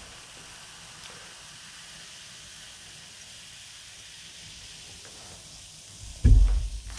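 Carbonated soda fizzing in a cup just after being poured, a soft, steady hiss of bursting bubbles. A loud, low thump comes about six seconds in.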